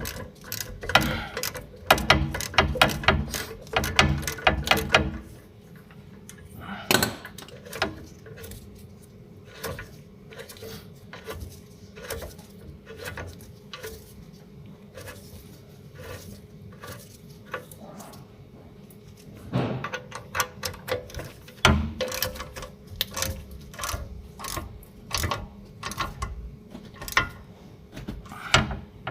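Hand tool work on a car's rear wheel hub: runs of rapid clicking like a ratchet wrench being worked, in two spells at the start and the end, with scattered single clicks and a few louder metal knocks in between.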